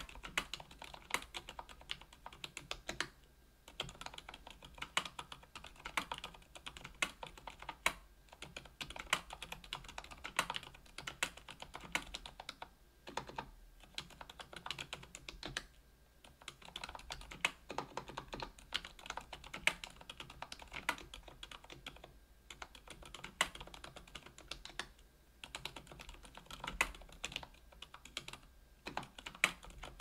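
Typing on a KBDfans Tofu 65% aluminium-case mechanical keyboard with an aluminium plate, Krytox 205g0-lubed Zilents V2 62 g silent tactile switches and Cherry-profile PBT keycaps: a steady run of keystrokes broken by short pauses every few seconds.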